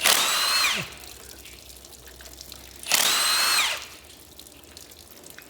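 Power wrench spinning out cylinder head bolts on a small block Chevy V8, in two short runs under a second each. In each run the whine holds steady, then drops in pitch as the tool stops.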